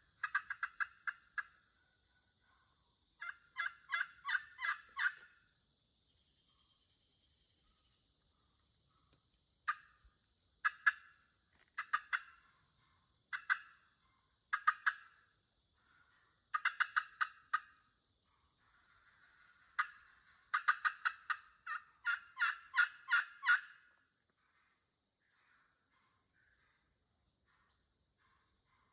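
Wild turkey hens yelping: short runs of sharp notes, from single yelps to strings of six or eight, trading back and forth with pauses between.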